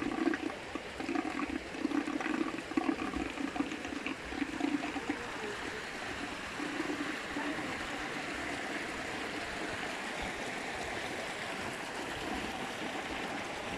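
Water pouring from a pipe into a concrete trout pond, a steady rush that evens out after about five seconds. A faint intermittent pitched sound lies over the first few seconds.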